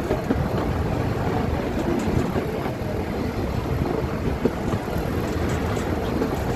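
Metre-gauge toy-train coach running along the track: a steady rumble and rattle of wheels on rails, with a few faint clicks.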